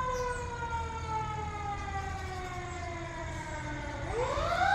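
Fire truck siren wailing: a long tone that slides slowly down in pitch, then about four seconds in swoops quickly back up and grows louder.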